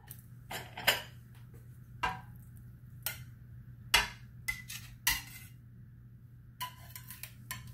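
Scattered short clinks and knocks of a utensil and plate against a stainless steel sauté pan as fried chicken pieces are laid into the sauce, over a steady low hum.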